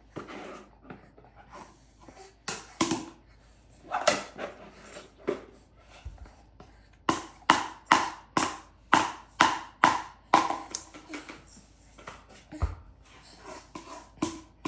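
A baby's lips smacking in kisses: scattered smacks at first, then a quick run of about two a second for a few seconds, and a few more near the end.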